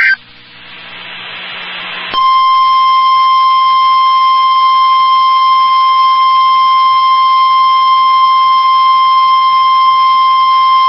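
NOAA Weather Radio warning alarm tone: a single steady high 1050 Hz tone that starts about two seconds in, after a short stretch of faint rising static hiss, and holds unbroken for about nine seconds. It marks the start of an alert broadcast, here a severe thunderstorm watch.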